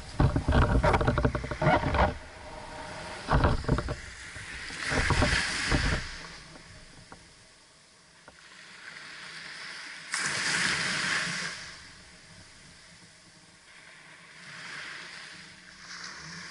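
Small waves breaking and washing up a sandy beach around a beached sailing dinghy, the hiss of the surf swelling and fading about every five or six seconds. The first two seconds hold a louder, rough buffeting with knocks.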